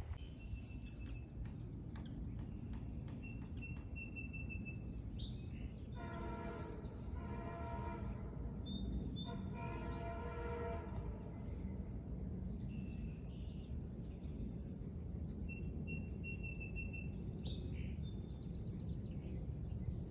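Long Island Rail Road train horn sounding two long blasts of a multi-note chord, about six and nine seconds in, over steady low background rumble. Birds chirp with short high calls throughout.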